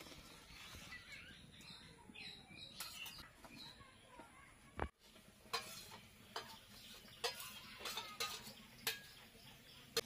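Metal spatula scraping and clinking against a steel kadai as a simmering curry is stirred, with a string of sharp, uneven clinks in the second half.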